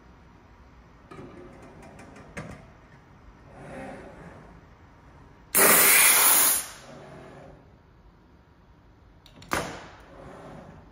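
Compressed-air hiss from the pneumatics of a robot machine-tending cell: one loud blast of about a second a little past halfway and a shorter sharp one near the end. Before them, faint clicks and a soft whir from the collaborative robot arm and gripper moving.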